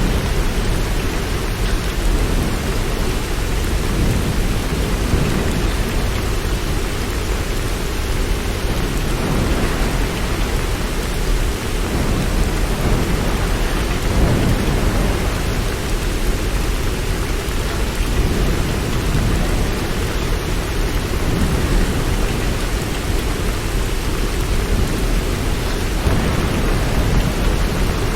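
Steady heavy rain, with a low rumble that swells and fades every few seconds.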